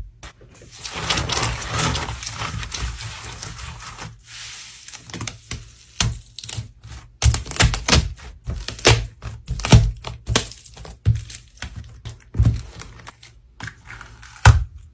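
Slime being pressed and worked by hand: crackling for the first few seconds, then a run of sharp, irregular clicks and pops.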